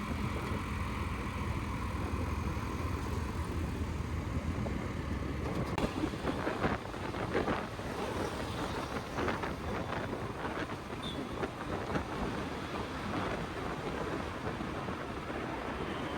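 Motorcycle ride through city traffic: a steady low engine and traffic hum, then wind gusting on the microphone from about six seconds in as the bike moves.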